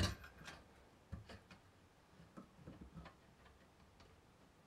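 Small plastic clicks and taps of fingers working a wire connector loose from a circuit board, with one sharper click at the start and faint irregular ticks after it.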